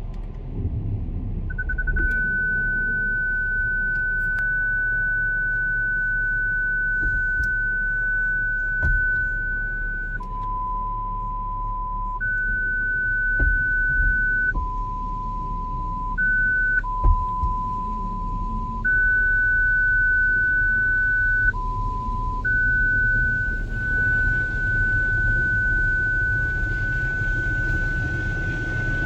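A car's parking-sensor warning sounding as a continuous beep, switching back and forth at irregular moments between a higher and a lower tone, set off by the car-wash brushes and spray close to the car. Under it is the low rumble and hiss of the automatic car wash.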